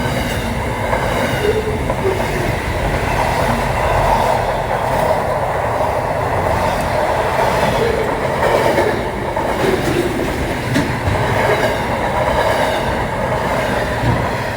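Pacific National freight train's wagons rolling along the track: a steady, loud rumble with occasional sharp clicks from the wheels.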